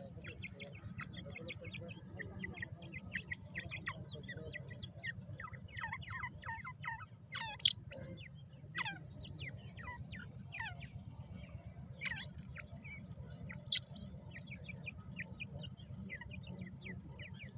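Grey francolin chicks peeping as they forage, a rapid run of short falling chirps, several a second, with two louder calls, one a little under halfway and one about three-quarters through. A steady low hum runs underneath.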